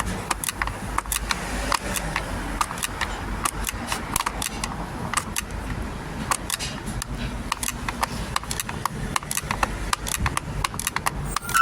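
Rapid, irregular metallic clicking and clatter of hand tools at work on the parking brake, over a low steady hum.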